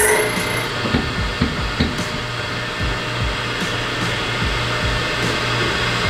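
Motorized key cutting machine, a Framon 2 code machine, running steadily as it cuts a KW1 key blank, with scattered light clicks and knocks.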